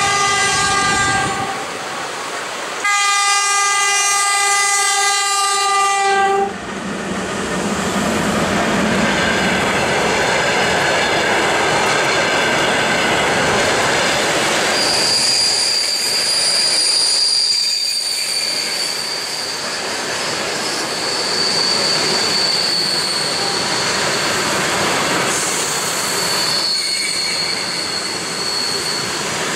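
Two train horn blasts, the second longer, then a passenger train hauled by a 2ES4K electric locomotive runs past with the steady rolling noise of its coaches. A high wheel squeal joins about halfway through and lasts most of the rest.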